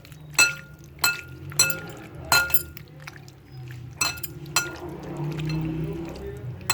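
Spoon clinking repeatedly against a glass bowl while chicken pieces are stirred with lemon juice: about seven sharp, ringing clinks at irregular intervals.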